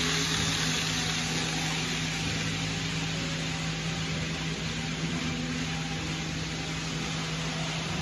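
KATO N-scale 0 series Shinkansen model train running past on the layout track, a whirring, rolling hiss that is strongest in the first couple of seconds and eases as it moves away. A steady low hum runs underneath.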